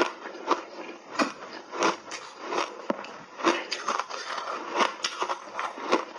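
Ice chunks crunched between the teeth, a sharp crunch about every half to three-quarters of a second.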